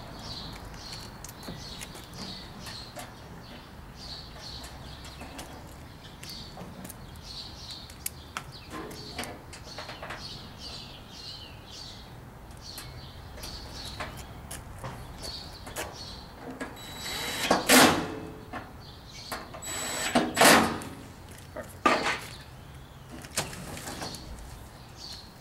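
DeWalt 20V cordless drill driving screws into a gas grill's sheet-metal cart frame: two runs of about a second each, some two and a half seconds apart, then a shorter third. Before them come light taps of handling the parts.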